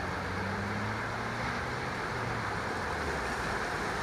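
Steady rush of ocean surf with wind on the microphone, and a faint low hum that fades out about three seconds in.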